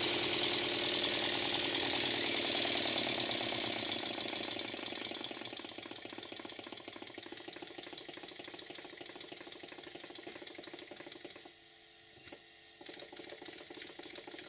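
Stuart Double 10 twin-cylinder vertical model steam engine running with a rapid, even beat, its eccentrics freshly adjusted so that it runs well in forward and reverse gear. It is loud for the first few seconds, then quietens and runs on softly, with a brief near-silent break and a small click near the end.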